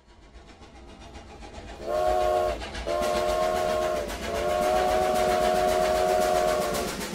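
Train sound effect: a train's rumble builds up, then a train horn sounds three times, a short blast, a longer one and a long held one, over the regular clatter of the wheels.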